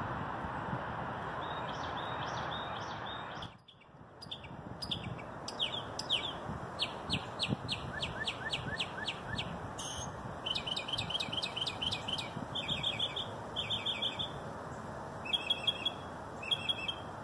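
Songbirds chirping over a steady background rush. After a brief drop-out a little under four seconds in, one bird gives a quick run of short repeated notes, followed by chirps in pairs and small groups.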